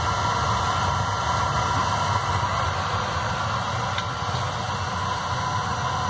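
Home-built waste vegetable oil burner running steadily, a low rumble with a faint steady whine, with its oil feed turned up, which the builder says cools the flame.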